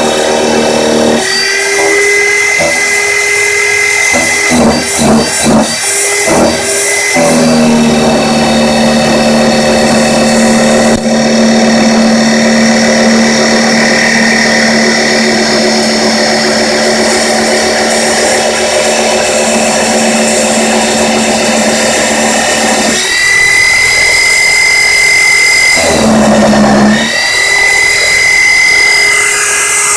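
Homemade concrete-framed CNC mill cutting aluminium with an end mill: a loud, steady machining whine and cutting noise that changes pitch a few times, stuttering briefly in the first few seconds.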